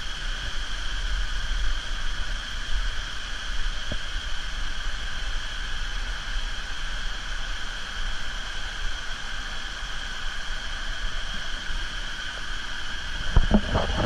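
Steady rush of water pouring over small cascades, with low wind rumble on the microphone and a few knocks near the end.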